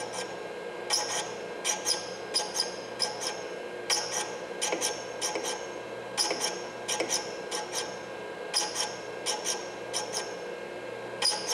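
Valve-refacing grinder's stone running with a steady hum while a new valve stem's tip is swept back and forth across it, each pass a short grinding scrape, several passes a second in clusters: the stem is being ground down to length, a few thousandths at a time.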